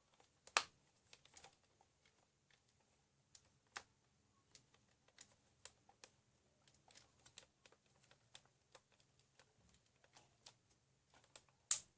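Scattered light clicks and taps of AA batteries being pushed into a toy robot's battery compartment, a tight fit. The louder clicks come about half a second in and just before the end.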